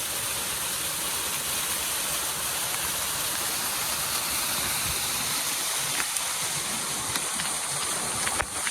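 Small rain-fed waterfall: a steady rush of falling, splashing water.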